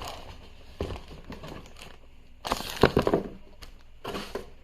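Paper and packaging rustling and crinkling in bursts as items are handled and pulled from a box, with a few light clicks and knocks; the loudest rustle comes about halfway through.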